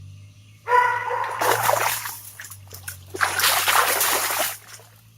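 Two bouts of heavy splashing in shallow creek water, the first about a second in and the second about three seconds in, as hands lunge into the water to grab a bass.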